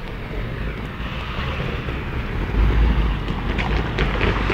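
Wind buffeting the microphone in gusts, strongest about halfway through, over a hiss of road traffic that grows louder.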